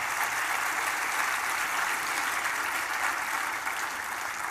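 Audience applauding, a steady even clapping that eases off slightly near the end.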